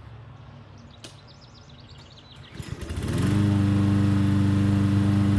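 Briggs & Stratton Quantum single-cylinder lawn mower engine pull-started about two and a half seconds in. It catches at once, revs up quickly and runs at a steady speed. The engine runs smoothly now that its valve timing is corrected.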